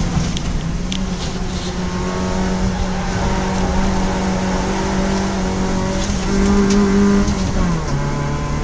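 Citroën Saxo track car's engine holding a steady note under way, heard from inside its stripped cabin; near the end the engine pitch drops.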